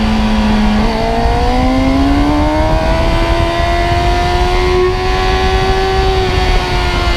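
Sport motorcycle engine under load, heard from on board: a level note, then revs climbing steadily from about a second in as the bike accelerates out of a corner, easing back a little near the end, over low wind rumble.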